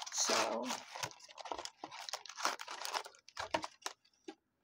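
Foil trading-card booster-pack wrappers crinkling as they are handled and set in place. There is a dense run of crinkles for about three seconds, then a few scattered ones.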